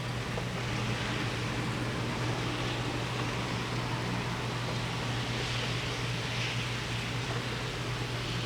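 Steady rush of heavy thunderstorm rain, an even noise with no thunderclaps, over a constant low hum.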